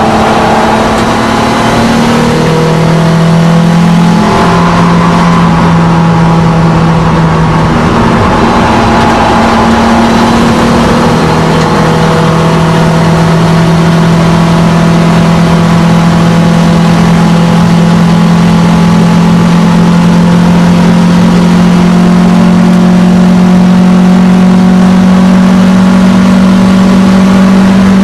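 Alfa Romeo GTV engine under hard throttle, heard from inside the cabin: its pitch changes in steps with gear changes over the first several seconds, then holds as one long, steady pull down the straight, over road and wind noise.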